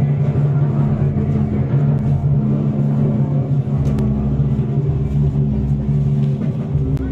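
An engine running steadily, an even low hum that holds the same pitch throughout.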